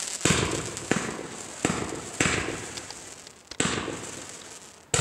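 Consumer category F2 fireworks cake firing shot after shot: about six sharp bangs, irregularly spaced half a second to over a second apart, each trailing off in a long echoing rumble.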